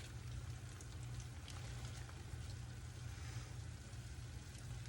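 Food frying in a hot pan: a faint, steady crackle with scattered small pops over a low steady hum.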